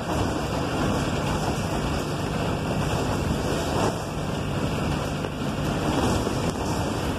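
City bus driving along a street, heard from inside the cabin near the driver: a steady engine and road rumble.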